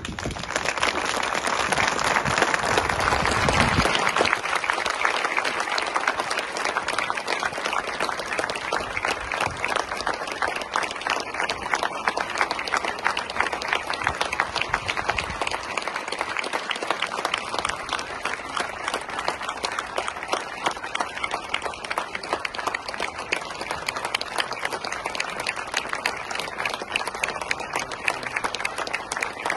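A large crowd applauding steadily for a coffin, the clapping loudest in the first few seconds and then carrying on without a break.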